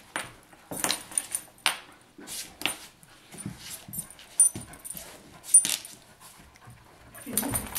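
A chocolate Labrador and a small white dog play-fighting: a quick run of short growls and yips in bursts every half second or so, loudest about four and a half and five and a half seconds in.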